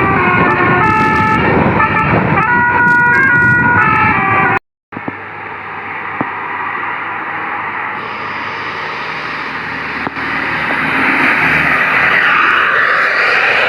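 Bus telolet basuri musical horn playing a quick tune of stepped notes. It cuts off abruptly, and a steady engine and road noise follows that grows louder near the end.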